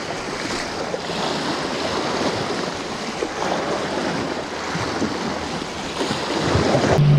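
Sea waves surging and washing over rocks at the shoreline, a steady rushing wash, with some wind on the microphone.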